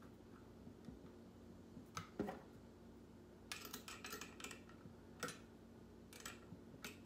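Faint clicks and light metallic ticks of a small nut and washer being handled and threaded onto the diaphragm bolt of an air pump, a few at a time with a brief flurry near the middle.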